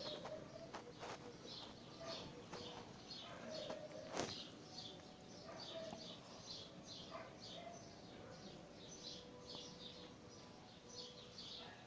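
Faint bird chirping: short high chirps repeated about twice a second, with a single sharp click about four seconds in.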